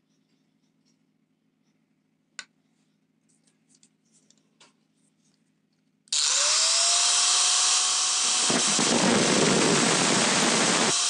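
A few faint clicks and one sharp clink, then about six seconds in an angle grinder starts up, its whine rising to a steady pitch. From about eight and a half seconds the disc grinds against a metal drill chuck key held in locking pliers, adding a loud rasping noise over the whine.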